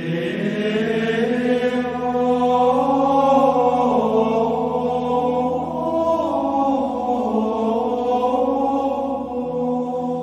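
Slow, Gregorian-style vocal chant: sung lines that hold and glide over a steady low drone, the voices coming in right at the start.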